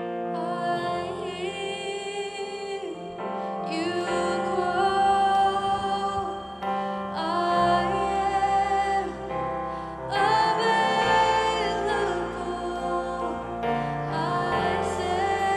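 Live worship music: a singer holding long notes with wavering pitch over sustained chords whose bass notes change every few seconds.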